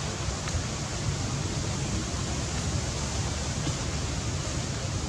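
Steady outdoor background noise: an even hiss with a low, fluttering rumble underneath and no distinct event.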